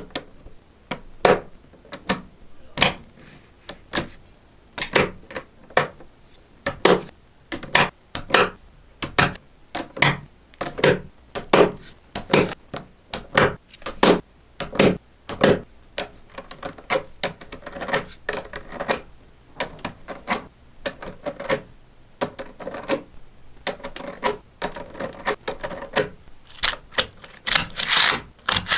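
Small magnetic balls snapping together with sharp, irregular clicks, about two or three a second, as they are placed one by one. Softer rattling and clicking fills in between the loud snaps in the second half.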